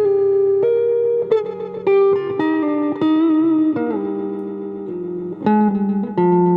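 Electric guitar played through wah and echo effects: a slow, soulful phrase of sustained single notes and double stops, with a few bent notes.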